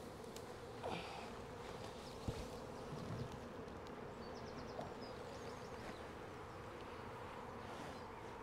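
Honey bees buzzing at a crowded hive entrance, a faint, steady hum. A single light knock comes about two seconds in.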